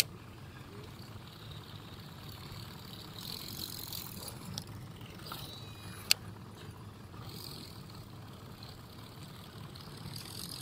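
Baitcasting reel being wound in on a steady retrieve, a low continuous whir of the handle and gears, with two sharp clicks, one at the start and one about six seconds in.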